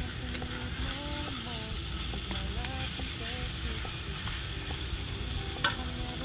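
Diced pork belly and curry paste sizzling in a wok while a wooden spatula stirs and scrapes it around, with one sharp knock near the end.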